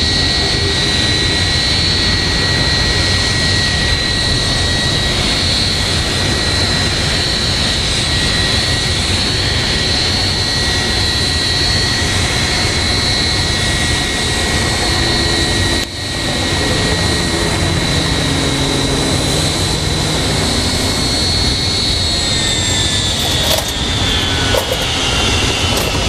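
Airbus A320 jet engines running at taxi idle: a steady rushing noise with a high whine on top. About 22 seconds in, the whine starts to slide down in pitch as the engines spool down, typical of shutdown at the stand. A few light clicks come near the end.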